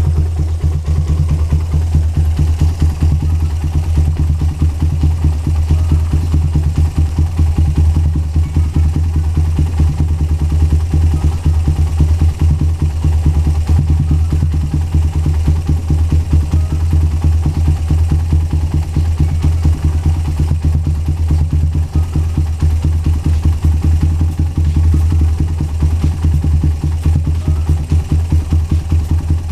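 Suzuki Satria F150 single-cylinder four-stroke engine idling steadily through a Lone Rider HE CMMS 30 cm racing exhaust, a loud, deep, rapid popping burble with no revving.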